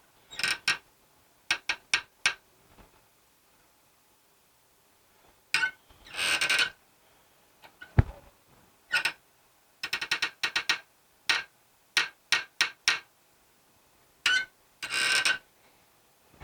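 Metal tools being worked and handled: bursts of clicking and ratcheting with clinks of metal, and one dull thump about eight seconds in.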